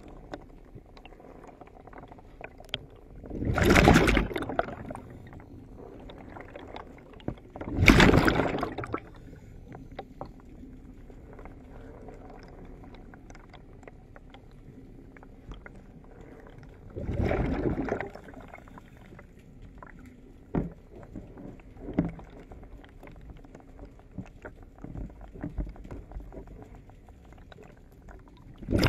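Water sloshing and gurgling around a camera held underwater against a ship's hull. Four louder rushing surges of about a second each, a few seconds apart, stand out over a low wash dotted with small clicks.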